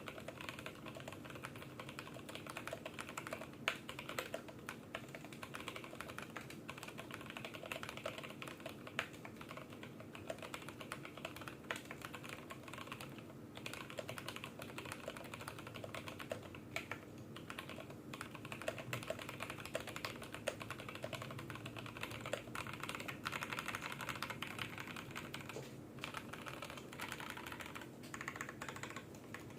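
Continuous typing on an IDOBAO ID80 v1 mechanical keyboard with lubed, filmed Durock T1 tactile switches and PBT keycaps: a dense, irregular run of keystrokes with a few louder strikes. A faint steady hum sits underneath.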